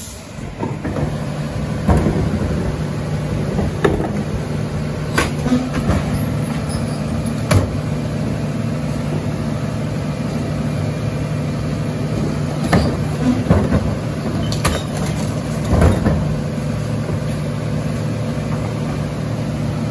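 Mack LR rear-loader garbage truck with a Heil compactor body running steadily, with sharp metallic clanks and knocks every few seconds from the rear loading work.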